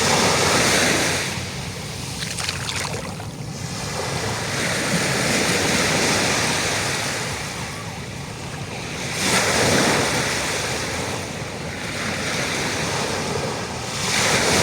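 Ocean waves breaking and washing on a shore, the rush of surf swelling and fading every few seconds.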